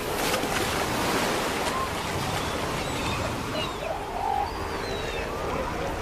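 Steady rushing of ocean surf, with a few faint short animal calls over it near the middle.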